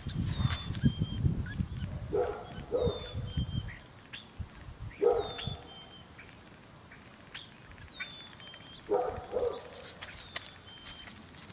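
A dog barking a few times, about every three seconds, often twice in quick succession, while a small bird repeats a short high chirp.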